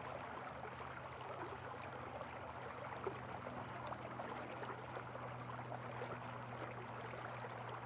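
Faint steady hiss with a low hum: room tone of the narration recording.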